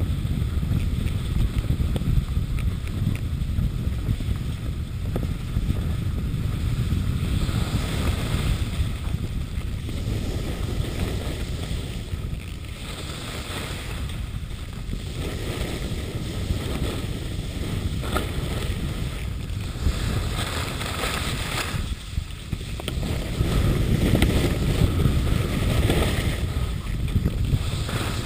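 Wind noise on the microphone during a downhill ski run, with the skis scraping and hissing across the snow in surges every two to three seconds through the turns, louder in the last few seconds.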